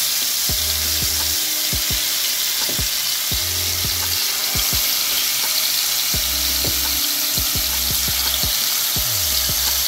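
Marinated chicken drumsticks and thighs sizzling steadily as they fry in hot oil in a frying pan, with more pieces being laid into the oil by hand. Background music plays underneath.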